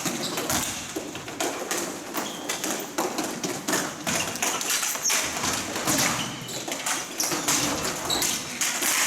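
Ball hockey play: a continuous, irregular clatter of taps and knocks as sticks strike the ball and each other.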